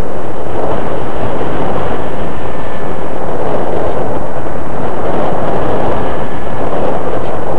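Slow Flyer 1400 radio-controlled model plane in powered flight, heard from its onboard camera: a loud, steady rush of propeller and airflow noise, with a faint high motor whine coming and going.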